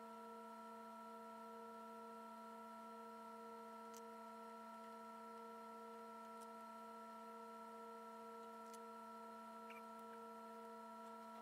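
Near silence: room tone with a faint, steady hum of several held tones and a few faint ticks.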